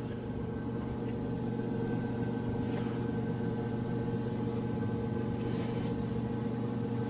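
Steady mechanical hum made of several fixed tones, with a few faint light taps.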